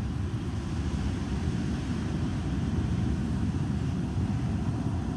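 Strong wind buffeting the microphone in a steady, rough low rumble.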